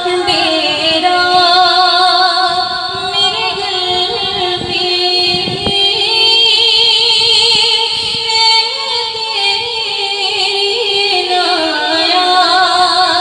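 A young woman's solo voice singing an Urdu devotional naat into a microphone over a PA with echo added, drawing out long, slowly gliding notes with no words.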